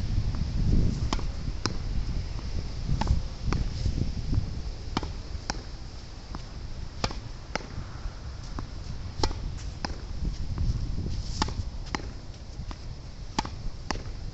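A tennis ball struck repeatedly against a practice wall: a sharp pop about every half second to second as it meets the racket, the wall and the ground. Strong wind rumbles on the microphone throughout.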